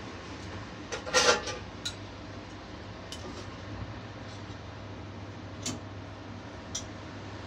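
Steel kitchen gear at a rotisserie chicken grill clinking and clattering, with one loud clatter about a second in and a few lighter clicks after it, over the steady low hum of the running rotisserie oven.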